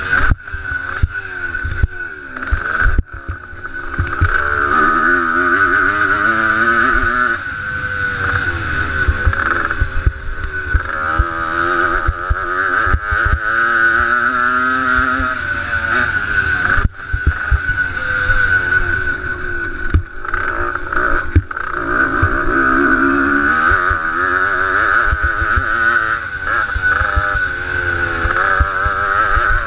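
Motocross bike engine revving up and down as it is ridden hard around a dirt track, heard from a helmet-mounted camera with wind rumble on the microphone. The engine note drops briefly about three seconds in and again about halfway through.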